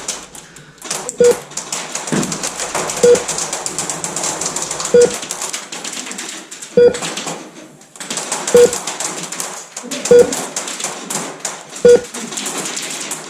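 KWA LM4 gas blowback airsoft rifle firing single shots, about one sharp crack every two seconds, over a constant clatter of other airsoft fire and BBs striking the room.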